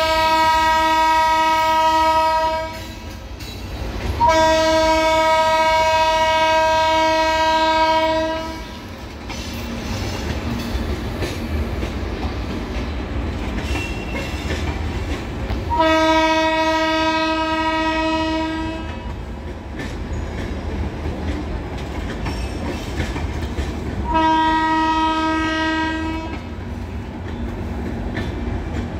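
Locomotive horn sounding four long blasts of two to four seconds each, over the low rumble and clickety-clack of the Tejas Rajdhani Express coaches rolling slowly past.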